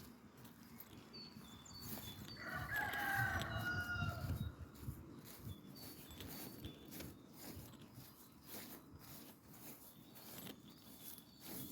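A rooster crows once, about two seconds in, one call of nearly two seconds that falls slightly in pitch at the end.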